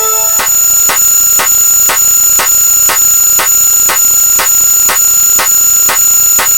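Synthetic electronic sound effects from a hexadecimal counter: a steady, high-pitched alarm-like tone with a sharp click about twice a second.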